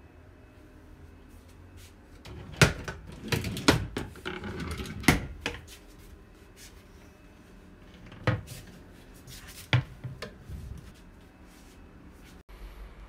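Kitchen cabinet doors being swung open and shut. Several knocks and clicks from the doors and hinges are spread over about eight seconds, the loudest a few seconds in.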